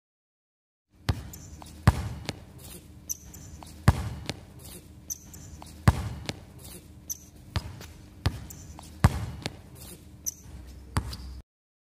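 Basketball bouncing on a hard outdoor court as a player dribbles. The sharp bounces start about a second in, with the loudest roughly every two seconds and lighter knocks between them.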